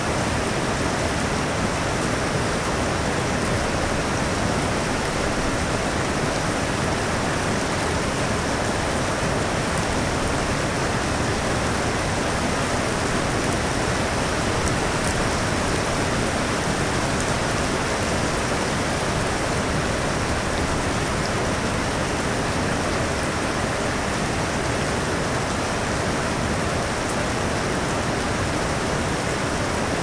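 Steady rain falling, an even, unbroken hiss with no thunderclap.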